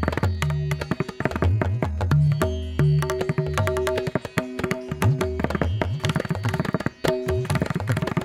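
Background music with fast, busy hand-drum strikes over steady low notes.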